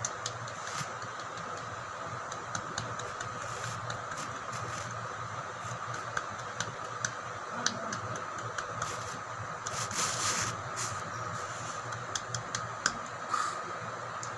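Steady low hum and hiss of indoor background noise, with scattered small clicks and light scrapes. The clicks come more thickly about ten seconds in.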